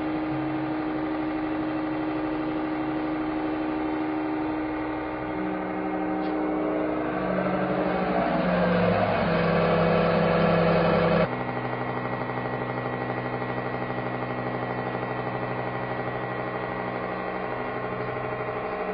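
Hydraulic press pump motor running with a steady humming whine. A little before halfway its pitch shifts and it grows louder as the ram bears down on the load, then it drops abruptly to a steadier hum.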